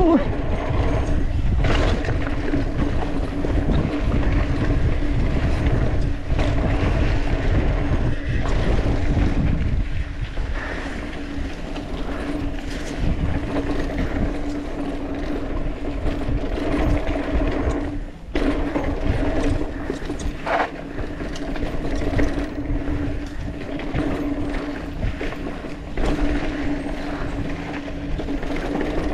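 Mountain bike rolling down a dirt trail: tyre rumble over packed dirt and dry leaves, rattles and clicks from the bike, and wind on the microphone, with a steady low hum underneath.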